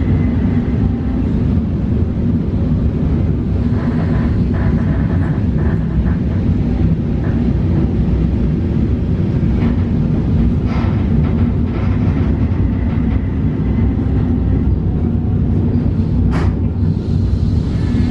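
Inside a PKP EN71 electric multiple unit: steady low running rumble as the train rolls slowly along the platform, drawing to a stop. A single sharp click comes about 16 seconds in.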